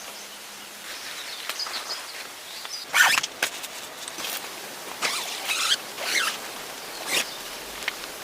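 Camping gear being handled: irregular rustles and scrapes, the loudest about three seconds in, over a faint outdoor background.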